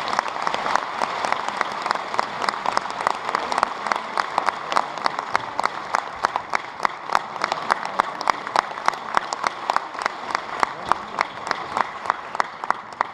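Audience applause: a burst of dense clapping that settles into rhythmic clapping in unison, about two to three claps a second, fading near the end.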